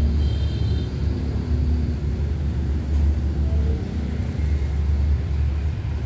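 Low, uneven rumble of wind buffeting the microphone, swelling and dipping irregularly. A faint high tone stops about a second in.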